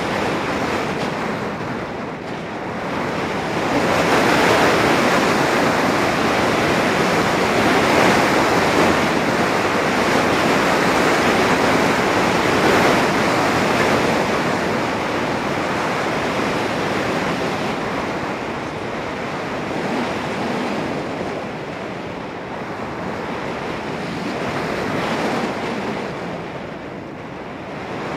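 Wind noise from air rushing over the onboard camera's microphone of a Volantex Phoenix 1600 RC glider in flight: a steady rush with no motor tone, swelling louder about four seconds in and easing off in the last few seconds.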